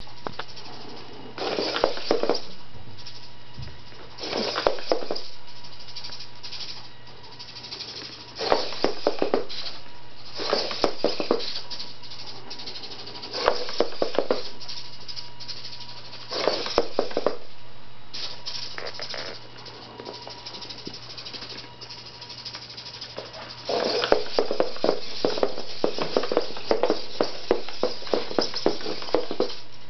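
Hobby servos in a quadruped robot's legs buzzing and rattling in short bursts as the robot shifts its body to re-center on an object it is tracking. There are about eight bursts, with a longer run of them near the end.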